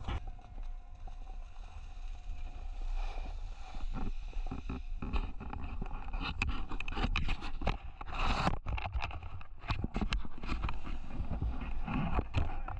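Irregular crunching and scraping on snow, a run of short sharp sounds of uneven spacing that grows busier in the second half, over a steady low rumble of wind on the microphone.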